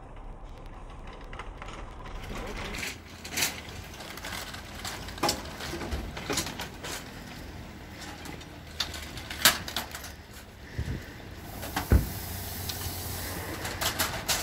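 Metal shopping carts clanking and rattling, with sharp knocks every second or two. Near the end a hiss lasts about two seconds as the cobot disinfects a cart's handle.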